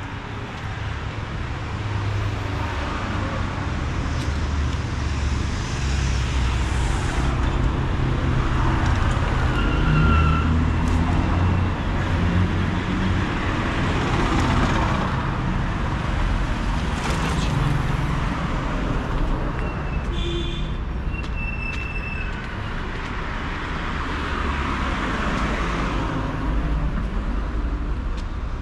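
Street traffic: cars passing one after another on the road, each swelling and fading over a low steady rumble.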